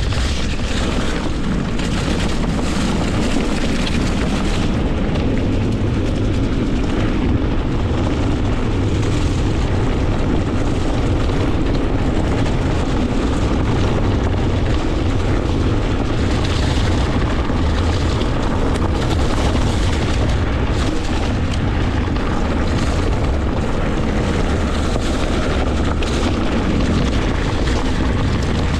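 Wind buffeting the microphone of a camera carried on a mountain bike while riding, a steady low rumble with many short knocks from the ride over rough ground.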